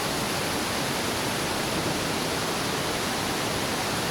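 Steady, even rushing of the Iguaçu waterfalls, with no breaks or changes in level.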